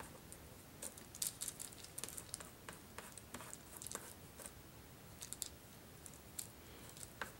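Plastic knife scraping and tapping on wax paper as it mashes crushed powder blush with drops of alcohol into a paste: faint, irregular little scrapes and clicks.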